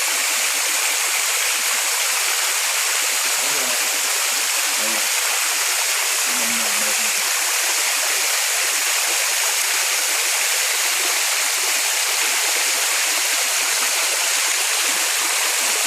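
Waterfall running steadily: an even, unbroken hiss of falling water.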